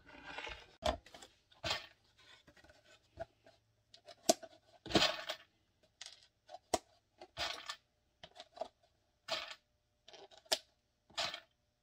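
Eyelets being handled and set into a Kydex holster with an eyelet press and die set: a scattering of sharp metallic clicks and short scraping sounds, one every second or two.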